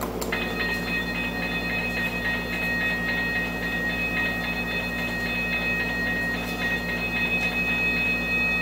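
Toy railroad crossing signal's bell sounding, a rapid, steady ringing that starts about a quarter second in as the signal is switched on to warn of a train.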